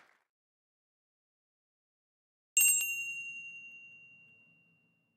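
Silence, then about two and a half seconds in a single bright bell-like chime rings once and fades away over about two seconds.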